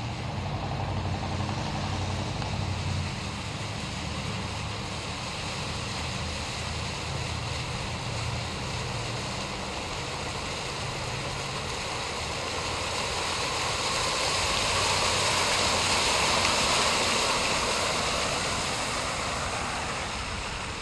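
A car driving slowly through floodwater on a street: its engine hums low at first, then the rush and hiss of water thrown up by the tyres builds as it comes past and eases off near the end.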